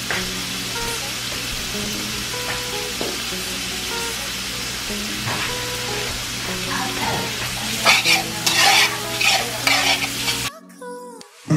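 Chopped bacon frying with a steady sizzle in a nonstick pan. From about eight seconds in, a utensil scrapes and stirs the pieces around the pan, and the sound cuts off suddenly near the end.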